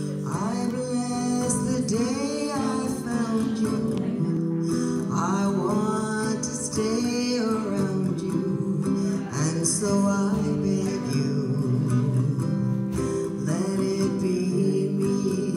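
A woman singing a slow ballad while strumming an acoustic guitar, her voice carrying the melody over steady chords.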